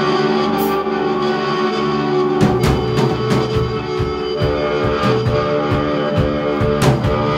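Rock instrumental: sustained chords ring for the first couple of seconds, then a drum kit comes in about two and a half seconds in, playing a steady beat with electric guitar.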